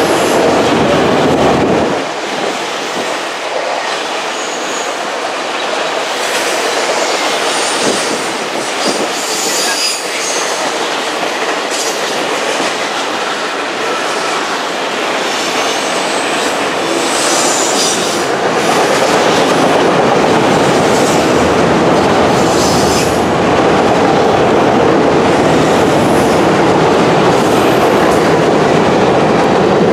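Norfolk Southern manifest freight cars rolling past on curved track: a steady rumble and clatter of steel wheels on rail, with short high-pitched wheel squeals now and then. It gets louder about two-thirds of the way through.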